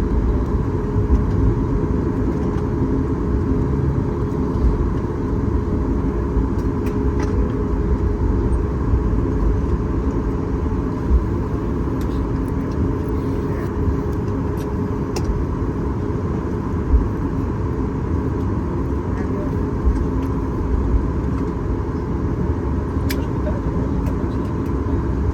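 Steady rumble and hum inside the cabin of a Boeing 737 MAX 8-200 with its CFM LEAP-1B engines running at low power while the aircraft taxis, with a few constant tones and occasional faint clicks.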